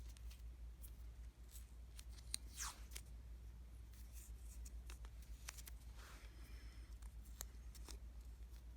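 Vinyl electrical tape being peeled off the roll and wrapped around a soldered wire splice: faint peeling crackles and small clicks, with a longer peel a little under three seconds in, over a low steady hum.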